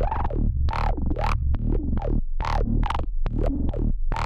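An electronic loop playing through FabFilter Volcano 3, its resonant filter peak swept up and down by a step-sequenced modulation, giving a rhythmic pattern of rising and falling resonant sweeps over a steady bass and sharp percussive hits.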